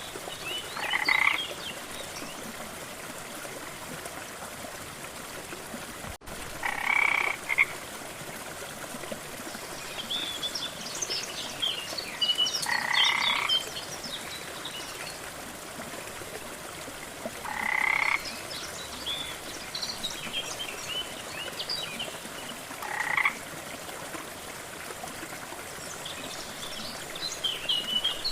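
A frog croaking about every five seconds, each croak lasting about a second, over the steady rush of a waterfall. Short, high chirping calls come in between the croaks.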